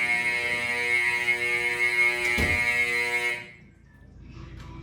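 Old Edwards fire alarm horn sounding a continuous, loud buzzing blare. It cuts off abruptly about three and a half seconds in, the non-latching horn falling silent as the system is reset. There is a single knock shortly before.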